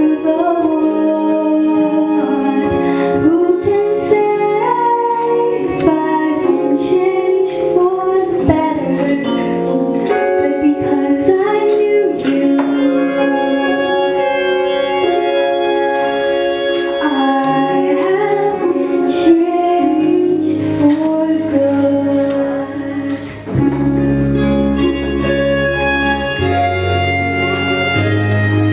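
A female solo voice singing a ballad over instrumental accompaniment, with deeper bass notes joining in about two-thirds of the way through.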